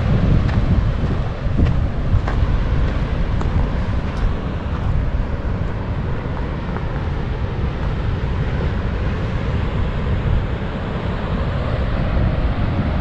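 Wind buffeting the microphone during a bicycle ride, a steady rumble, with a few sharp clicks in the first couple of seconds.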